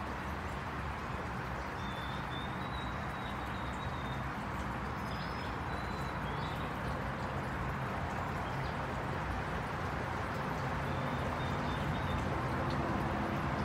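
Steady background rumble and hiss, with a few faint, thin, high bird chirps now and then.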